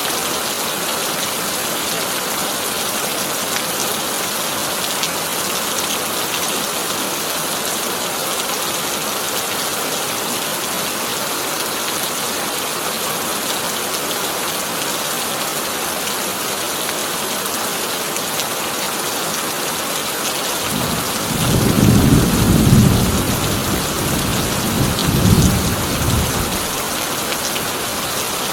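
Heavy rain falling steadily on a corrugated tin roof. Near the end, a roll of thunder rumbles for about five seconds and swells twice before fading.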